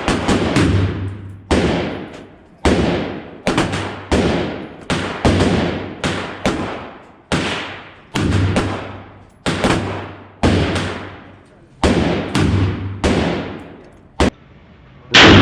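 Steady semi-automatic fire from a Smith & Wesson M&P AR-style pistol: about a dozen single shots, roughly one a second, each with an echoing tail.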